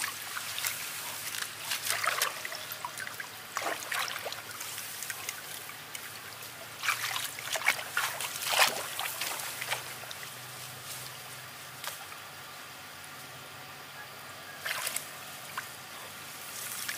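Shallow, muddy ditch water splashing and sloshing in irregular bursts as it is churned by hand while catching catfish, with a quieter spell about ten to fourteen seconds in.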